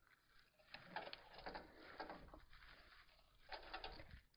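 Faint clicks and rustling of hose clamp pliers setting a spring hose clamp on a rubber coolant hose, with short clusters of clicks about a second in, around two seconds and near the end.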